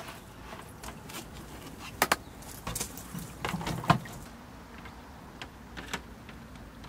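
Camping gear being handled on a hard plastic cooler: a few sharp clicks and knocks as items are picked up and set down, the loudest about four seconds in.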